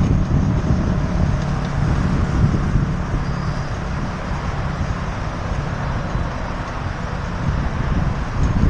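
Wind buffeting a cycling camera's microphone as the bicycle rides along an asphalt road, a steady low rumble and rush with no break.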